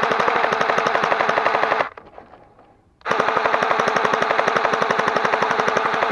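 Kris Vector electric gel blaster firing on full auto in two long bursts of rapid, even shots: its motor-driven gearbox cycling and snapping gel balls out. The first burst stops about two seconds in and the second starts a second later.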